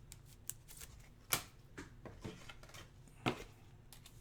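Trading cards and card packaging being handled on a table: scattered light clicks and rustles, with two sharper taps about a second in and again near three seconds.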